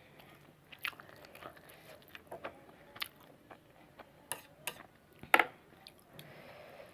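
A person chewing and biting spicy noodles close to the microphone: scattered short wet clicks and smacks, the loudest a little over five seconds in.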